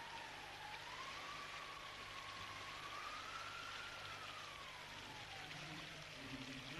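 Faint film-score line: a single high tone that rises and falls slowly, like a long drawn-out melody, over steady hiss and a low hum. Near the end a low humming voice begins.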